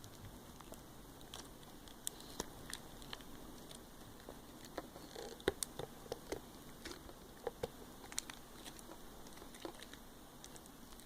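Slime being squeezed and poked, giving faint, irregular little clicks and pops, busiest in the middle of the stretch.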